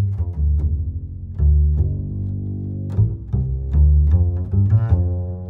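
Background music with a deep bass line of short notes and frequent sharp attacks.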